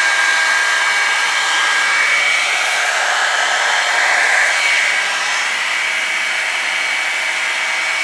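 Revlon One-Step hot-air brush (hair dryer and volumizer) running steadily: a loud rush of blown air with a high motor whine, as it is worked through the hair.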